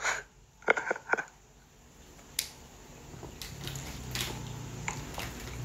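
Light clicks and rustling from a smartphone being handled close to its own microphone, with a few short mouth or breath sounds in the first second.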